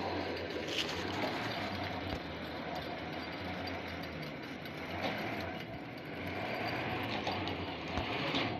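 Side-boring well-drilling rig running steadily, with a constant low hum under a dense mechanical noise.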